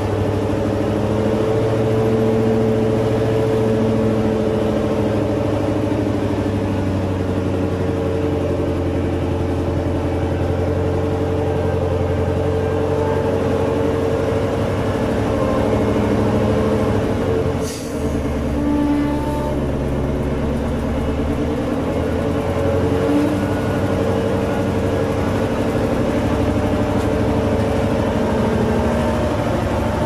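Nissan 6x6 logging truck's V8 engine running steadily, heard from inside the cab, its note shifting a few times. About halfway through, a brief hiss comes with a short dip in the engine sound.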